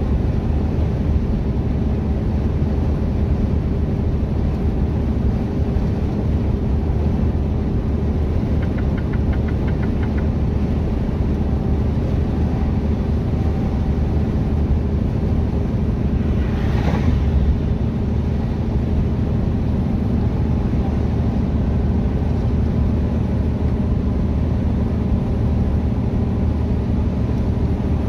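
Mercedes-Benz Actros semi truck heard from inside the cab at highway cruising speed: a steady low diesel engine drone with road and tyre noise. A brief louder whoosh comes about two-thirds of the way in.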